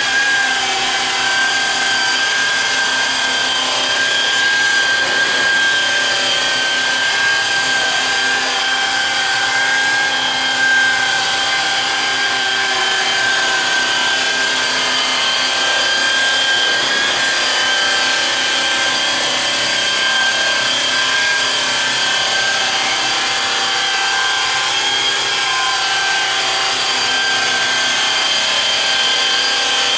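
Variable-speed rotary polisher spinning a 40-ply loose cotton buff loaded with green compound, set to about 2200 RPM and worked along an aluminum driveshaft. It gives a steady, high-pitched motor whine over the rushing of the buff against the metal.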